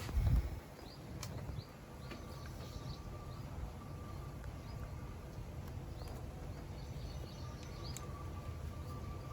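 A thump right at the start, then faint bird chirps over steady low background noise.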